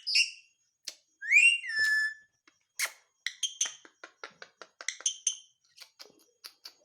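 Ringneck parrot whistling, a note that slides up and then holds about a second in, followed by a string of short, sharp chirps and clicks.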